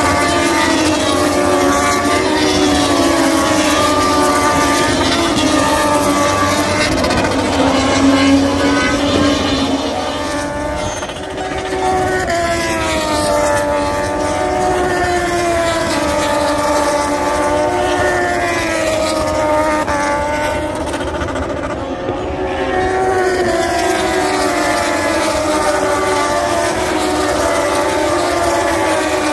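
MotoGP racing motorcycles passing at speed, several engine notes overlapping and rising and falling as they go by, with short lulls between passes.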